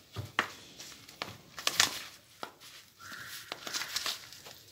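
Coarsely crushed green chillies being mixed with salt and turmeric in a plastic bowl: scattered light clicks and scrapes of the bowl and spoon, with a faint steady hiss that comes in about three seconds in.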